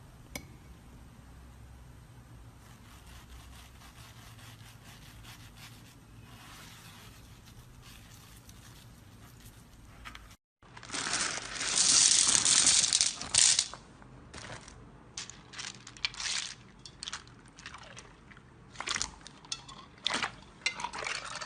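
Slime being handled: quiet, faint handling for about ten seconds, then after a cut, a loud crackling burst as the slime is squeezed, followed by many short crackles and squishes as it is pressed and poked.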